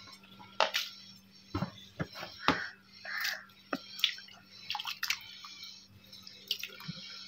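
Hands stirring and lifting shredded raw potato strips in a plastic tub of water: irregular small splashes and drips, a dozen or so scattered sharp sounds.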